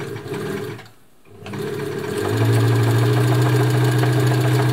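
Elna Lotus sewing machine stitching a wide zigzag through denim. It runs briefly, stops for a moment about a second in, then starts again and picks up speed to a steady fast run with a low motor hum. It has a slight rumble that the owner thinks might be a worn motor pulley.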